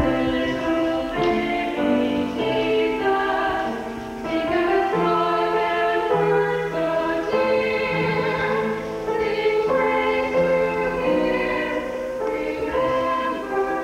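Live music: a slow tune of held notes, changing about every second, over a lower accompanying line.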